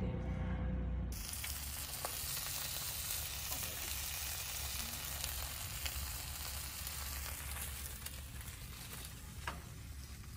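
Ham slices and fried eggs sizzling on a barbecue grill's flat griddle plate: a steady, even hiss that sets in suddenly about a second in, after a low hum.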